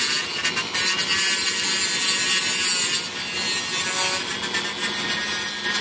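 Small electric drill running steadily with a whining motor, its bit cutting and rubbing through the glider's material.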